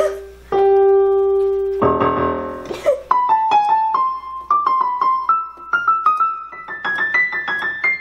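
Yamaha PSR-EW410 76-key portable keyboard being played: a single held note, then a many-key cluster about two seconds in, then single notes climbing in pitch one after another, coming faster near the end.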